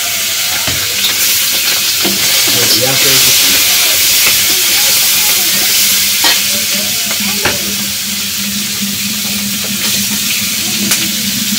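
Onion, garlic and green chillies frying in hot oil in a steel karahi: a steady sizzle, with a metal spatula stirring and scraping round the pan and a few sharp clinks of metal on metal.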